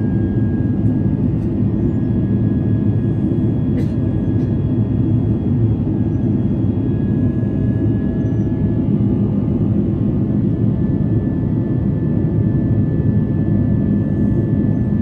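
Steady roar of jet engines and rushing air heard inside an airliner's cabin during the climb after take-off, with faint steady whining tones above it. A brief faint click about four seconds in.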